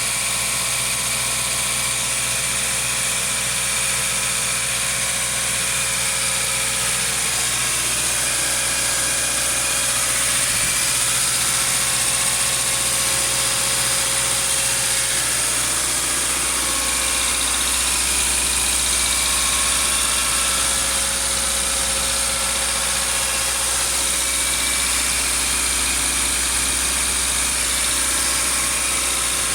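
Subaru FB20 flat-four engine idling steadily shortly after a cold start.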